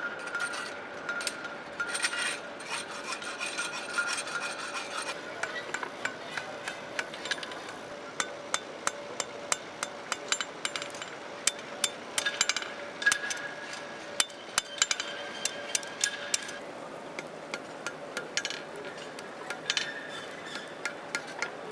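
Blacksmiths' hand hammers striking steel on anvils while forging tongs, with irregular strikes that come thick and fast in the middle and a steady metallic ring underneath.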